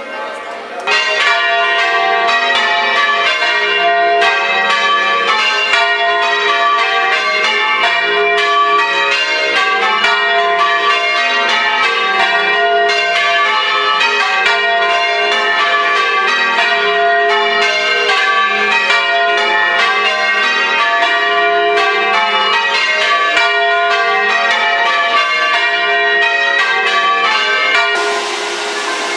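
English full-circle change ringing on a ring of church bells: a rapid, even run of overlapping bell strikes. Near the end it cuts to the steady rush of water over a weir.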